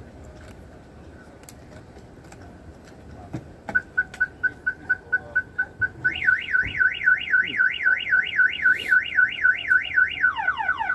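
An electronic alarm starts about four seconds in with a rapid string of beeps at one pitch, about five a second. About two seconds later it changes to a fast up-and-down warble, and near the end to quick repeated falling sweeps: a multi-tone cycling pattern.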